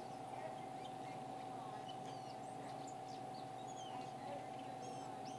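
Small songbirds chirping and whistling in the trees: many short, quick calls in a scattered chorus, over a steady faint hum.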